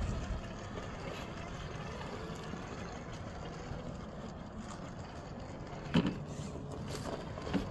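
Cross RC Emo X3 scale rock crawler climbing a rock pile: its small electric motor and geared drivetrain whining and changing pitch as the throttle is worked, with a sharp knock against the rock about six seconds in.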